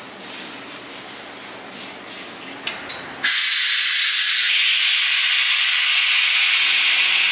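Compressed air hissing out of a pneumatic tofu press as its valve is opened and the pressing plate lifts off the moulds, releasing the press. The steady, loud hiss starts suddenly about three seconds in, just after two sharp clicks.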